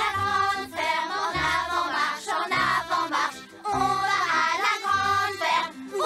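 A group of children's voices singing a song together over a musical accompaniment with a bass line.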